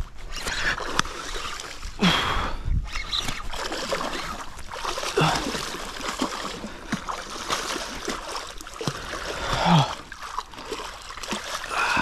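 A hooked wels catfish thrashing and splashing in the shallows at the river's edge, in repeated surges, the loudest about two, five and ten seconds in.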